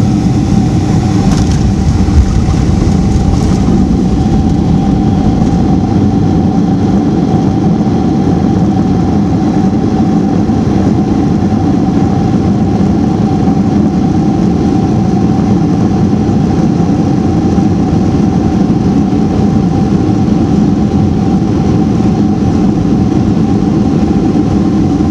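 Jet airliner cabin noise on the ground after landing: engines running with a steady whine over a loud, even rumble, heard from inside the cabin as the plane rolls along the runway and taxiway.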